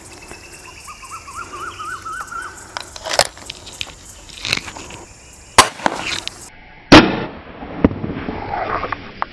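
Break-barrel .177 air rifle being loaded and fired: a few sharp clicks from the action, then one loud shot about seven seconds in. A bird sings a short wavering phrase near the start.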